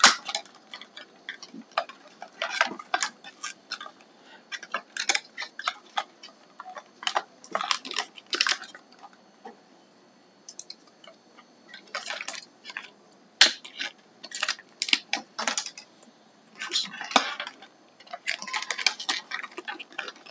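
Hands unpacking in-ear headphones from their retail packaging: irregular clicks and short rustling handling noises, with brief pauses.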